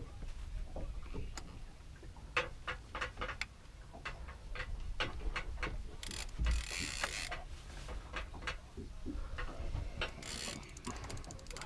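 Fishing reel clicking irregularly as it is worked against a hooked fish on a hard-bent boat rod, the clicks speeding into a fast run near the end, with two short bursts of hiss about six and ten seconds in.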